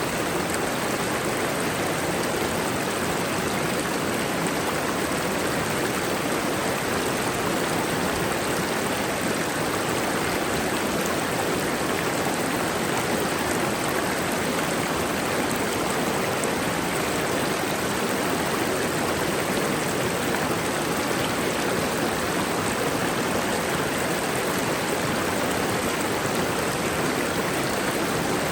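Mountain waterfall rushing steadily, an even wash of falling water with no breaks.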